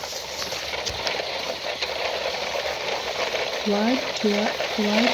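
Toy truck pushed through snow, its wheels and body crunching and scraping the snow in a steady crackly rustle. Over the last second or so, a voice makes a few short sounds.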